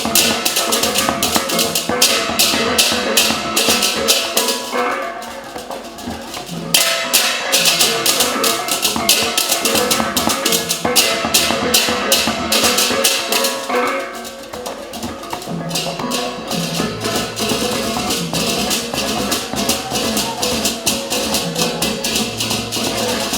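Balinese gamelan ensemble playing: fast, dense metallic cymbal-like strokes over ringing pitched metallophone tones. The high strokes drop out twice, briefly, about five and fourteen seconds in, leaving the pitched tones.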